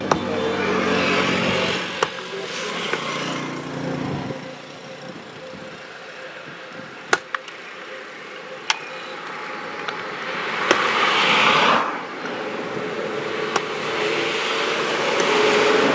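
Road traffic passing close by on a highway. An engine hums at first and fades, then a car swells past with tyre hiss and drops away suddenly. Near the end a heavy container truck's diesel engine grows louder as it approaches, and a few sharp clicks stand out in the quieter middle.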